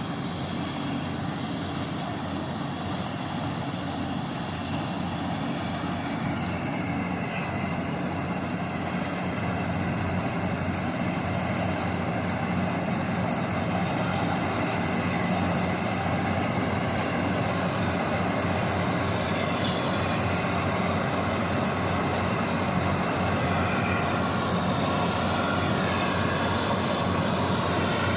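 Kaira 102 hp combine harvester running, a steady engine and machinery drone with higher whines that shift in pitch now and then, growing gradually louder.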